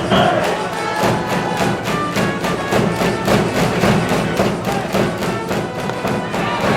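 School cheering band in the stands playing a fight tune with brass and a fast, steady drum beat.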